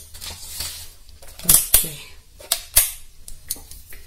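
Several sharp clicks and light clatters of small hard parts being handled on a workbench, as multimeter test probes and an electrolytic capacitor are picked up to test the capacitor. The loudest clicks come in a cluster about a second and a half in and again near three seconds.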